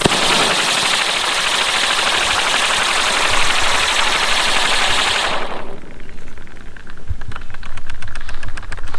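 A spinning firework wheel bursts into a dense, rapid crackling that goes on for about five and a half seconds, then thins into scattered sharp crackles and pops.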